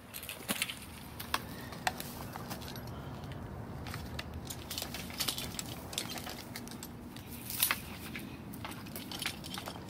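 Metal climbing hardware on an arborist's harness, carabiners and rope devices, clinking and clicking now and then as it is handled, with a louder cluster of clinks near the end.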